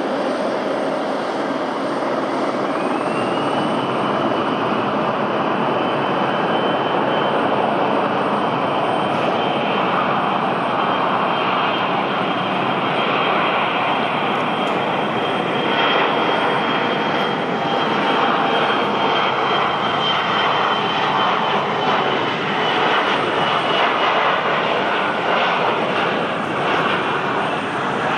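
Embraer 170 regional jet's twin turbofan engines at takeoff power. A thin whine rises over the first few seconds and then holds above a steady, loud rush of jet noise. The whine fades near the end.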